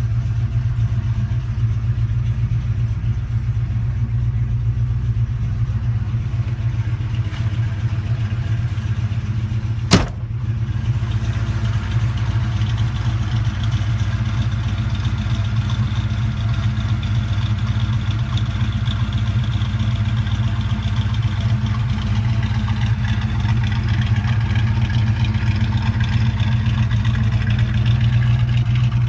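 1966 Chevrolet Impala's engine idling steadily with a deep exhaust note. A car door shuts with a single sharp bang about ten seconds in, and the exhaust gets a little louder near the end.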